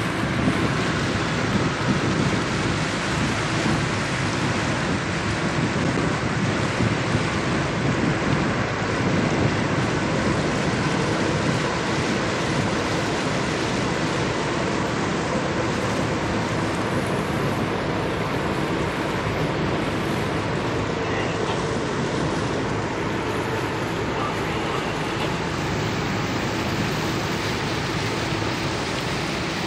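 Carver motor yacht under way: a steady rushing noise of wind and water with a faint, steady engine hum underneath.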